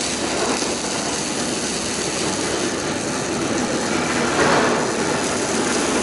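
Two robotic arc-welding torches welding a steel scaffolding plank frame: a steady hissing noise of the welding arcs, a little louder about four seconds in.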